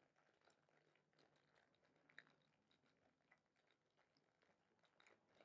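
Near silence: room tone, with two faint small clicks about one and two seconds in.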